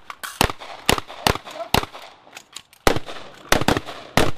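Pistol fire from several shooters on a firing line: about a dozen sharp shots at uneven intervals, some overlapping, each with a short echo.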